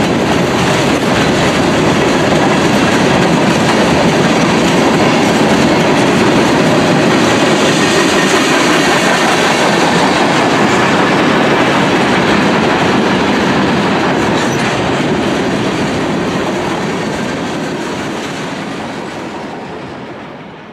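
Freight train's covered hoppers and tank cars rolling past, steel wheels running on the rails in a loud, steady rumble. Over the last several seconds the sound fades away as the end of the train passes.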